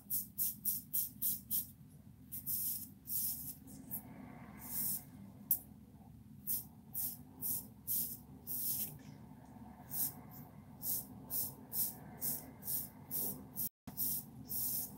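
Fine-tooth comb drawn through short, thick coily hair in quick repeated strokes, each a short scratchy swish, coming in runs with short pauses between. A low steady hum sits underneath.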